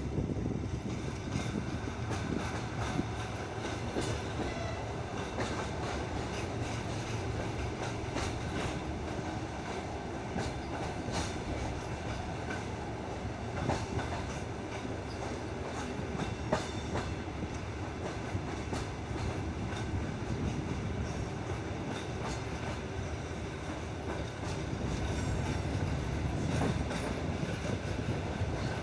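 Passenger carriage wheels running over the track: a steady rumble with irregular clicks and knocks from rail joints and points, growing a little louder near the end.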